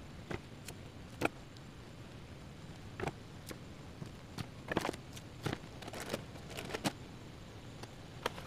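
Irregular clicks and taps from hands handling red kitchen scissors and food packaging at a table, with a cluster of quick clicks about halfway through.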